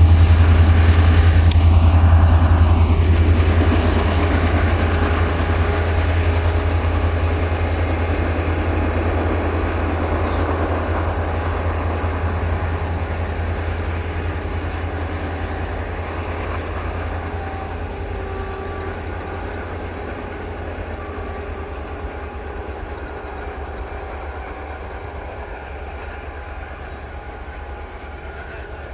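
EMD WDG-4 diesel-electric locomotive working hard as a banker pushing a heavy coal train, its two-stroke V16 engine giving a deep steady drone over the wheel noise of the wagons, fading as it draws away.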